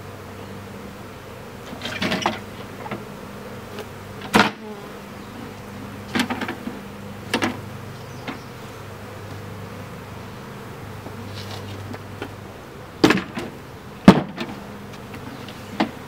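Honey bees from a freshly hived swarm buzzing steadily, with single bees passing close by the microphone. Several short, sharp knocks come through as well, the loudest about fourteen seconds in.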